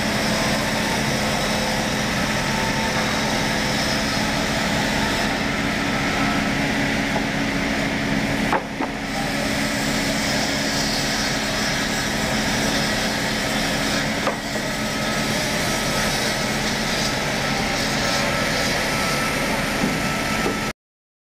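ZMAX woodworking machine running steadily while its cutting head works through a timber on the feed carriage. The sound breaks briefly about 9 s in and again around 14 s, and cuts off abruptly near the end.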